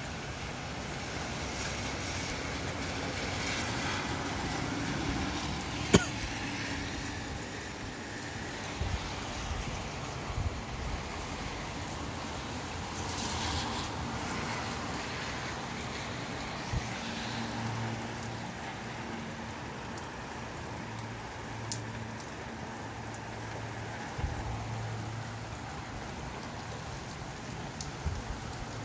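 Steady rain falling with wind blowing through it, a broad, even hiss. A sharp click about six seconds in stands out, and a low hum comes and goes in the second half.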